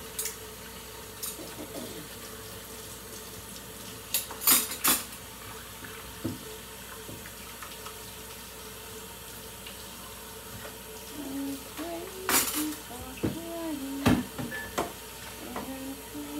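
Kitchen tap running into a stainless steel sink while dishes and cutlery are washed by hand with a sponge. A few sharp clinks of utensils and dishes stand out, the loudest about four and five seconds in and again around twelve seconds in.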